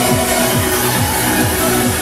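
Electronic dance music with a fast, steady kick-drum beat.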